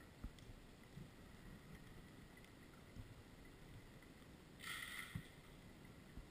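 Near silence underwater, with a few faint low knocks and a brief hiss about four and a half seconds in.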